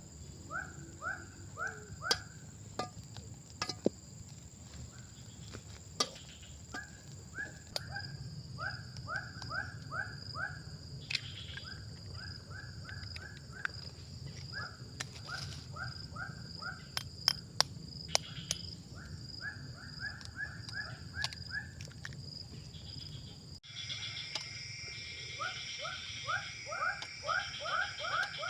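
Forest ambience: insects droning steadily at a high pitch, with repeated runs of quick rising chirps, several a second, from a calling animal. Scattered sharp clicks, and the background changes abruptly about two-thirds through.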